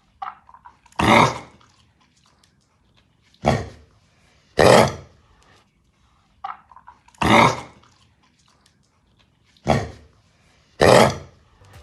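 A dog coughing from kennel cough (infectious tracheobronchitis), in four fits about three seconds apart. Each fit is a short cough followed by a longer, louder hack.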